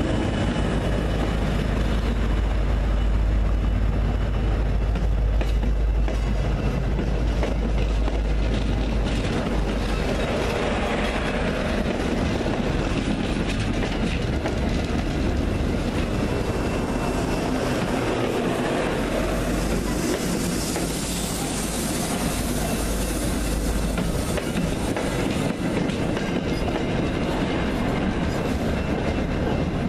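MBTA commuter rail train passing close by: the diesel locomotive's engine rumbles deep for the first several seconds, then the passenger coaches roll past with a steady clatter of wheels on the rails.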